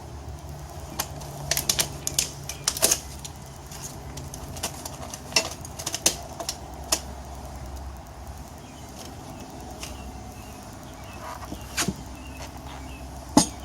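Tire irons clicking and knocking against a motorcycle wheel rim at irregular intervals as the new tire's bead is levered on, with one sharp knock near the end. A low steady hum runs underneath.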